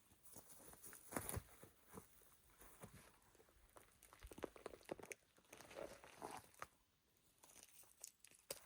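Faint, irregular crunching and tearing as a ruffed grouse is pulled apart, its wings pinned underfoot and its legs pulled straight up, tearing the skin and feathers away from the breast.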